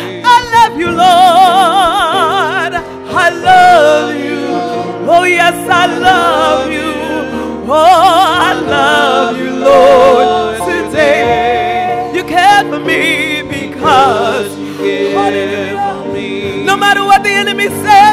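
A woman singing a gospel song with wide vibrato, accompanied by a Roland Juno-DS keyboard playing sustained chords.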